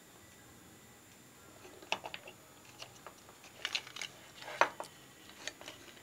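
Scattered light clicks and knocks as a microwave oven's control circuit boards and ribbon cables are handled, the loudest knock near the end.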